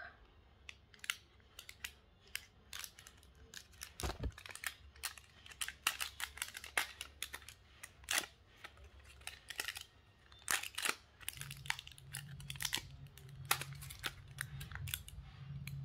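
Small scissors snipping into a small plastic packet, then fingers tearing and crinkling the wrapper open: a scatter of sharp clicks and crackles, with one thud about four seconds in.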